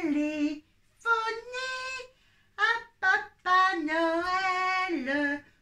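A high, childlike voice singing a slow melody unaccompanied, in short phrases with pauses between them and one long held note near the end.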